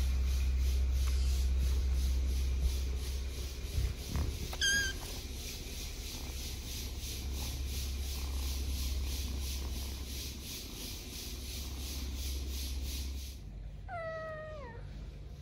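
Kittens mewing: one short, high mew about five seconds in, and a longer meow falling in pitch near the end. A steady low rumble runs under the first part and stops shortly before the last meow, with a few soft knocks around four seconds in.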